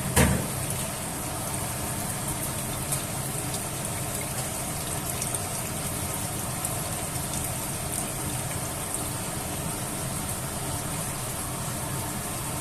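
Steady rushing noise of the stove and the pot of coconut-milk curry heating on it, with a single knock of a utensil against the pot just at the start.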